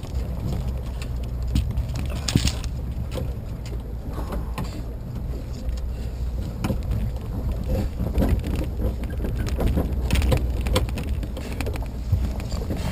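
A vehicle engine running steadily at low revs, with scattered clicks and knocks over the low rumble.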